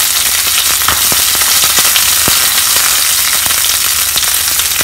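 Curry leaves and mustard seeds sizzling in hot coconut oil in a small pan, a steady hiss with scattered sharp pops and crackles as the seeds burst and the leaves spit.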